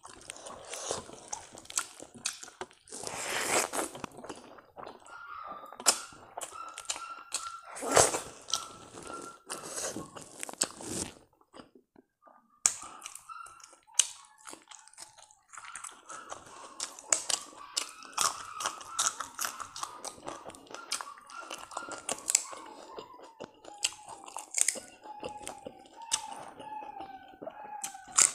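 Close-up eating sounds: chewing, lip smacks and crunchy bites as rice and pickle are eaten by hand with raw spring onion. A faint high puppy whimper sounds in the background, falling in short steps near the end.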